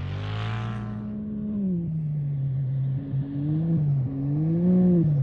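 Off-road race vehicle's engine passing by, its pitch dropping over the first two seconds, then rising and falling repeatedly as the throttle is worked.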